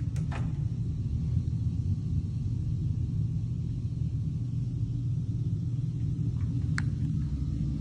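Steady low rumble with a door latch clicking as a closet door is opened by its knob just at the start, and another sharp click a little before the end.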